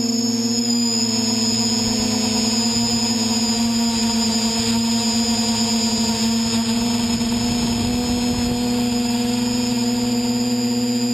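VC-450 quadcopter's electric motors and propellers running in flight, heard close up from the craft's own camera: a steady buzzing hum with a thin high whine above it, the pitch wavering slightly.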